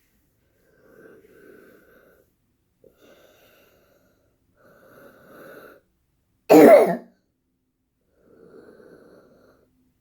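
A person's wheezing breathing: four faint drawn breaths, each about a second long, with one short loud cough about six and a half seconds in.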